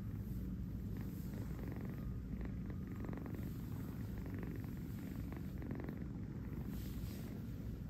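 Kitten purring steadily while being stroked: a continuous low, fast-pulsing rumble close to the microphone.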